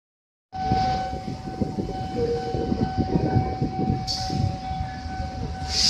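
Approaching container freight train: a low, uneven rumble with a steady high tone held throughout, starting about half a second in. There is a brief hiss about four seconds in and another near the end.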